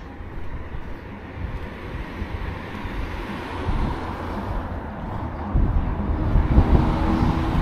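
A road vehicle approaching, its engine and tyre noise growing steadily louder.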